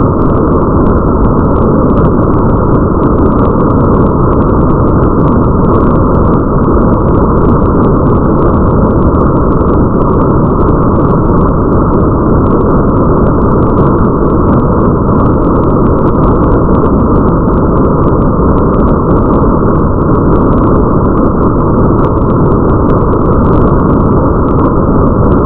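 Steady, muffled rain ambience: a dense, even rush of rain with a low rumble underneath and faint scattered drop ticks, without any change throughout.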